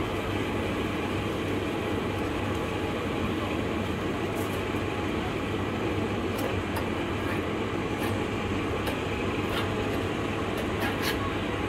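A steady low hum and rushing noise, machine-like and unchanging, with a few faint short ticks.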